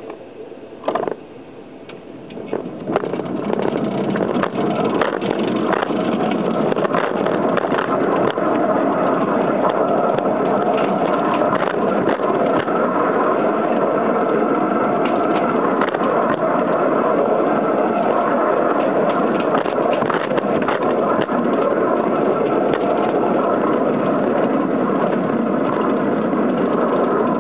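Petrol-electric model Sik locomotor running along its garden-railway track: a steady running noise with many small irregular clicks, which grows louder about three seconds in and then stays even.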